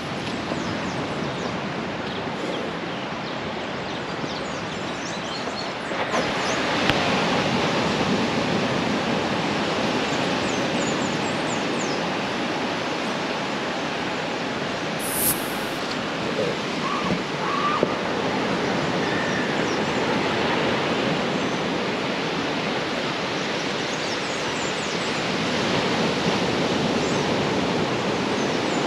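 Surf breaking on a beach: a steady rushing wash that grows louder about six seconds in.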